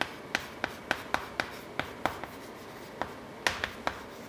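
Chalk tapping and scraping on a blackboard while Japanese characters are written by hand: a string of sharp, irregular taps, a few a second.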